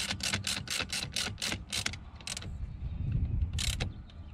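Socket ratchet wrench clicking in quick strokes, about four a second for the first two seconds, then a couple of single strokes. It is tightening the wire terminals onto a truck battery's positive post.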